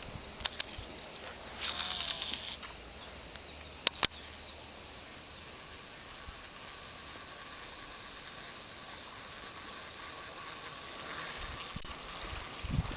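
Steady, high-pitched chorus of insects in the surrounding woods, with a pair of sharp clicks about four seconds in.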